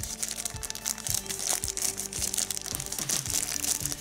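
Thin wrapping crinkling and rustling as hands unwrap a USB cable, over steady background music.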